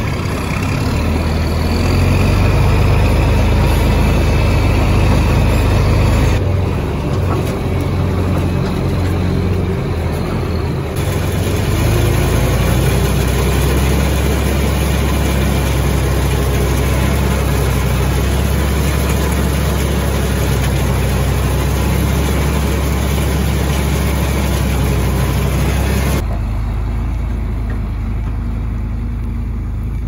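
John Deere tractor engine running steadily while it pulls and runs a feed wagon that is unloading feed from its side chute. The engine and machinery sound changes abruptly a few times.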